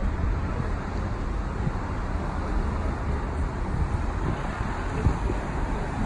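Steady city street traffic noise, a low rumble of passing vehicles.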